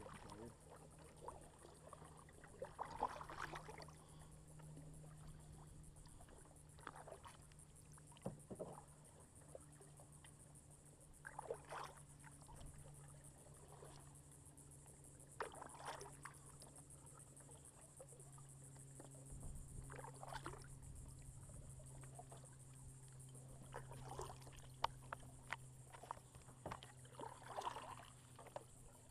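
Kayak paddle blades dipping and splashing in the water, a faint stroke every few seconds at an easy, uneven pace.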